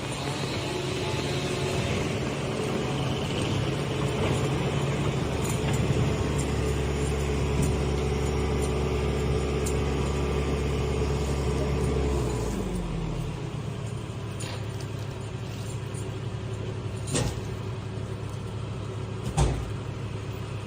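A large engine running steadily, then slowing to a lower idle about twelve seconds in; two short knocks near the end.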